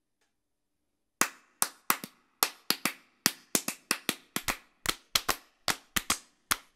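Hands clapping a quick, uneven rhythm pattern of several claps a second, starting about a second in.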